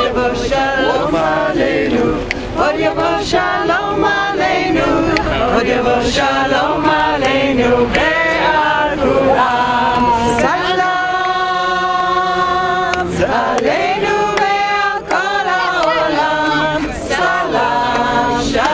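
A group of marchers singing together without instruments, with one long held note about halfway through.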